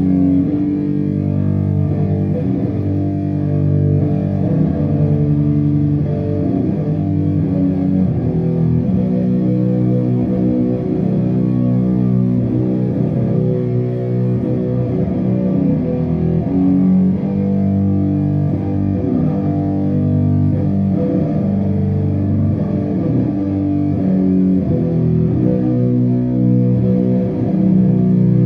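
Live doom metal band playing long, sustained chords on heavily distorted electric guitars and bass, loud and bass-heavy.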